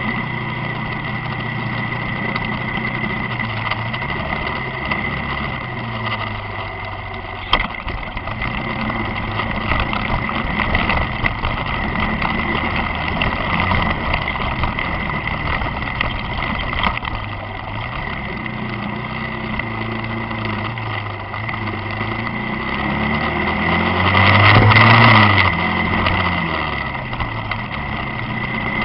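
Engine of the vehicle carrying the camera, running on the move over steady road and wind noise, its pitch rising and falling as speed changes. A steady high-pitched whine runs underneath, with a single click about seven and a half seconds in and a louder swell about twenty-four seconds in.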